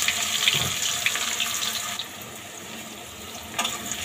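Sliced onions sizzling in hot oil in a kadhai, loud at first and dying down about halfway through. A spatula knocks against the pan near the end as stirring begins.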